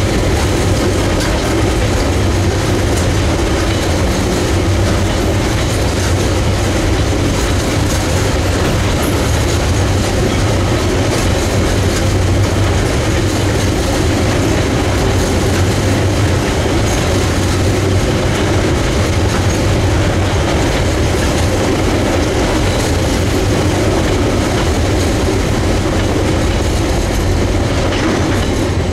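Container wagons of a long freight train rolling past close by, a steady loud rumble of steel wheels on the rails. Near the end the last wagon passes and the sound begins to ease.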